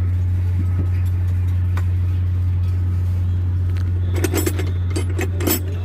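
Metal tools clinking and knocking several times from about four seconds in, over a steady low hum.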